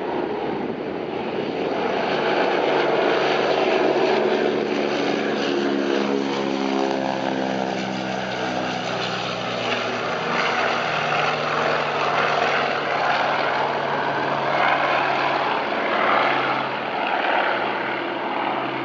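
Canadair CL-215 water bomber's twin Pratt & Whitney R-2800 radial piston engines at takeoff power as it lifts off and climbs past. The propeller drone drops in pitch as it goes by, then holds steady as it climbs away.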